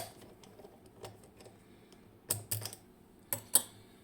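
Sharp metallic clicks from a dimple lock cylinder being handled. There are four clicks in the second half, in two pairs, and the second pair is the louder.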